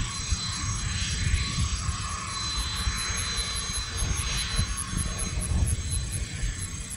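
Learjet 31A's twin Honeywell TFE731-2C turbofans at taxi power as the jet rolls by: a steady rumble with a high whine that grows stronger for a couple of seconds midway.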